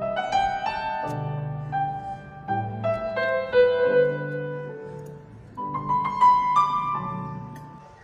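Background piano music: single notes and chords ringing out and fading, with a phrase dying away near the end.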